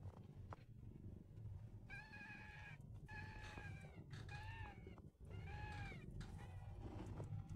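A newborn kitten mewing four times in high, thin calls of under a second each, over a low steady rumble.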